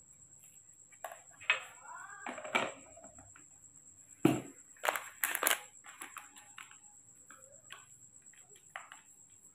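Clatter of formula-making gear being handled on a metal tray: several sharp knocks of plastic cups and a bottle being set down, loudest in a cluster between about four and six seconds in, followed by lighter clicks of a spoon and a crinkling milk-powder packet.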